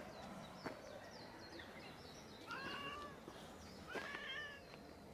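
Tabby cat meowing twice, two short meows about a second and a half apart, each rising then falling in pitch.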